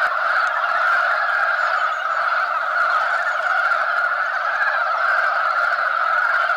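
Dense breeding chorus of many Korean brown frogs calling together at a spawning site, a steady overlapping mass of croaks with no pauses.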